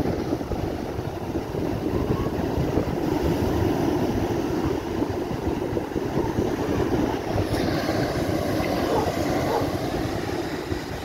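Rough storm surf breaking and washing up a sandy beach in a steady rush, with gusty wind buffeting the microphone in a low rumble.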